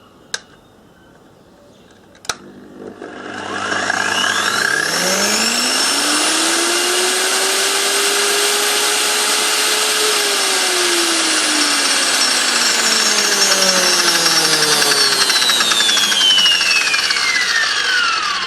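Electric angle grinder switched on after two years unused: a click, then its motor winds up with a rising whine to full speed and runs loudly. Through the second half the whine sinks slowly in pitch, and near the end it drops away. Running it like this is taken to clean up the motor's brushes.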